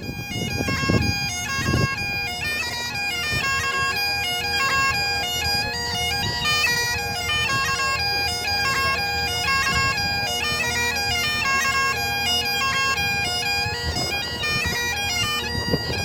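Bagpipes playing a tune of quick stepped notes over a steady drone, starting abruptly.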